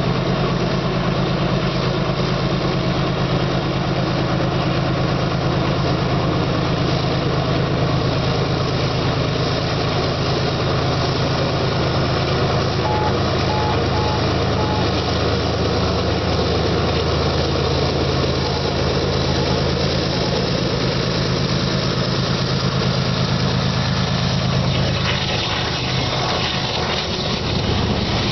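Two GE diesel-electric freight locomotives, an ES44AC and an AC4400CW, working hard up a grade: a steady, heavy diesel drone that grows as they approach. In the last few seconds the engine note drops away as the locomotives pass beneath, leaving a rougher rumble from the grain hopper cars.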